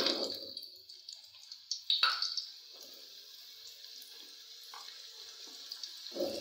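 Bitter gourd (karela) slices sizzling in hot oil in a steel kadai, a steady high hiss. It briefly grows louder about two seconds in and again near the end, when more slices are dropped into the oil.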